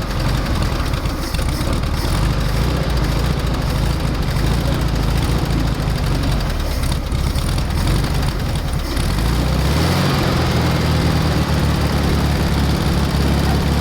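A 1973 VW Super Beetle's air-cooled 1600 flat-four is running on a cold start, its freshly rebuilt carburetor fed by a gravity-feed fuel tank. The engine note changes about ten seconds in.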